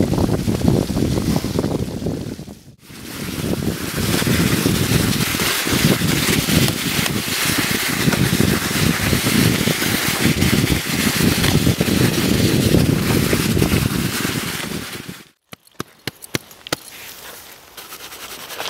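Heavy wind buffeting on the microphone of a camera riding on a mountain bike at speed, a dense low rumble that dips briefly about three seconds in. Near the end it cuts off abruptly to a much quieter outdoor scene with a few sharp clicks.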